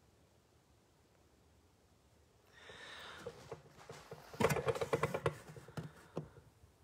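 Recording phone handled at close range: rustling starts about two and a half seconds in, followed by a quick series of taps and knocks against the device.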